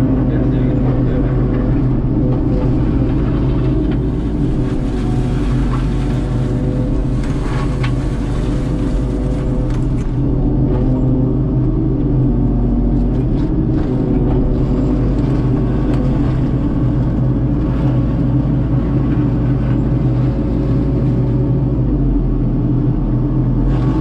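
Heavy diesel machinery running steadily at working speed: a Prime Tech PT175 tracked forestry mulcher with an FAE mulcher head grinding brush, and the engine of an excavator working close by with a grapple. The drone holds an even level throughout, with a little less hiss after about ten seconds.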